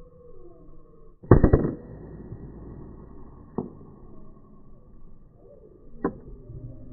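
A PCP air rifle fires once about a second in, a sharp crack that is the loudest sound. Two shorter, sharp clicks follow, about two and about five seconds later.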